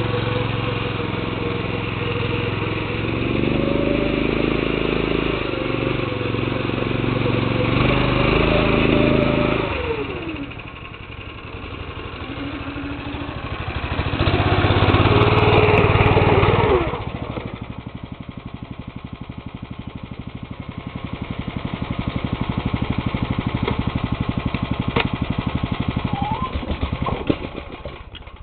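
Old tractor's engine running under load in the snow, its pitch rising and falling as the revs change twice, then dropping suddenly past the middle to a steady, evenly pulsing lower running beat.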